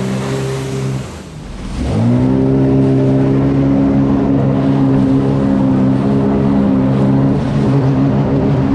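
2021 Sea-Doo Spark Trixx jet ski's Rotax three-cylinder engine running under throttle. It eases off about a second in, then revs back up near two seconds and holds a steady high pitch.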